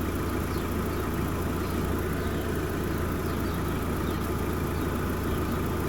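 A 2017 Fiat 500's engine idling steadily with the air conditioning running on full, as the system is being recharged with refrigerant.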